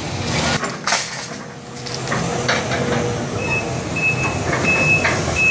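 A Sumitomo hydraulic excavator demolishing a concrete building: the engine runs under load, with knocks and clatter of concrete rubble. About halfway through, a high warning alarm starts beeping, about one short beep every half second or so.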